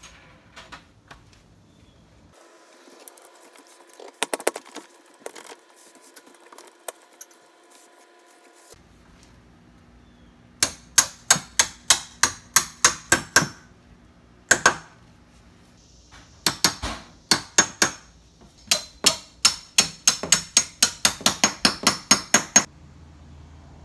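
Hammer tapping steel door hinge pins down into their hinges: quick, sharp metallic taps, about four a second, in three runs through the second half, after a stretch of only faint clicks.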